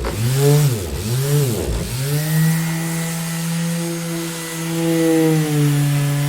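Orbital sander running with a steady buzzing hum. In the first two seconds its pitch dips and recovers several times, then holds nearly steady.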